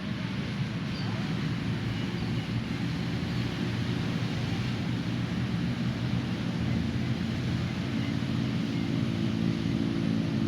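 Steady drone of motor-vehicle engines and traffic, growing somewhat louder near the end as a vehicle comes closer.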